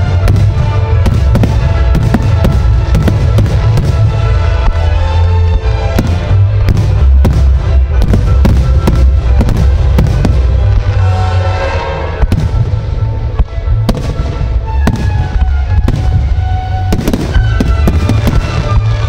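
Fireworks display: a rapid series of sharp bangs from bursting shells, over loud music with heavy bass that accompanies the show.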